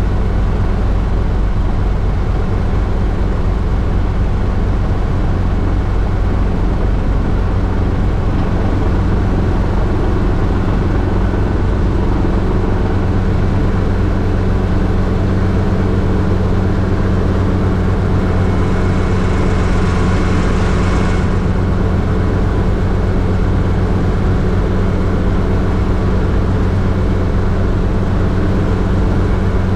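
Hughes 269 light helicopter in cruise flight, heard from inside the cockpit: the steady drone of its piston engine and rotors. About two-thirds of the way through, a louder hiss rises for about three seconds, then drops back.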